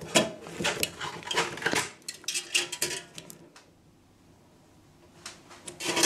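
Light metallic clicks and rattles of cables and parts being handled against a metal equipment chassis and its wire-mesh cage. The handling pauses for about two seconds past the middle, then the clicking starts again near the end.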